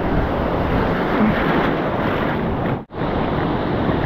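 Heavy surf breaking on a beach, with wind buffeting the microphone. The sound drops out for an instant about three seconds in.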